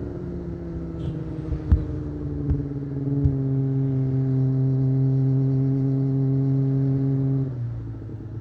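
Kawasaki ZX-25R's 250 cc inline-four running through an Akrapovic exhaust, heard onboard. Its note eases slowly down with a few sharp clicks, then about three seconds in it drops in pitch and gets louder, holding a steady note. Near the end it falls quieter.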